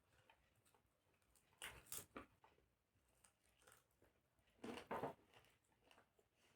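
Faint eating sounds: two short clusters of chewing and mouth noises, about 2 seconds and 5 seconds in, with near silence between them.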